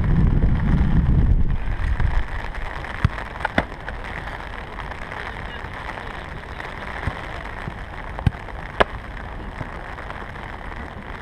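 Steady hiss of rain, with wind rumbling on the microphone for the first two seconds. A few sharp knocks cut through: two a little after three seconds in and two more about eight seconds in.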